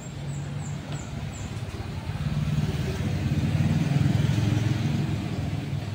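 A motor vehicle's engine running, growing louder about two seconds in and easing off slightly near the end.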